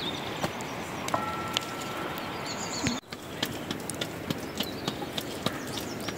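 Steady outdoor background with a brief high chirping in the first half. About three seconds in, hands start slapping a round of flatbread dough back and forth between the palms, about three soft pats a second, beside an open wood fire.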